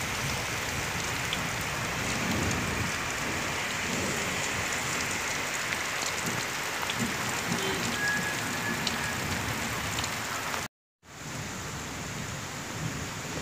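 Heavy rain pouring down steadily, with uneven low rumbles of gusting wind underneath. The sound cuts out for a moment about eleven seconds in, then the rain carries on a little softer.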